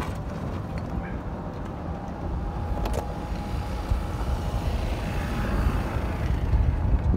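Wind buffeting the microphone in a steady low rumble, with one sharp click about three seconds in: a golf club striking the ball.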